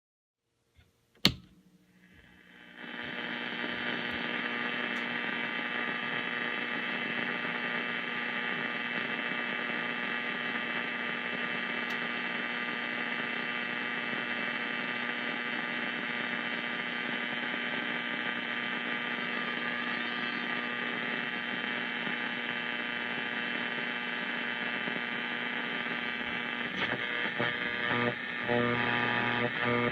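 Old radio switched on with a sharp click about a second in, then static and hum swelling up over a couple of seconds into a steady hiss and whine between stations. Near the end the sound turns choppy as broken fragments of signal come through while the dial is turned.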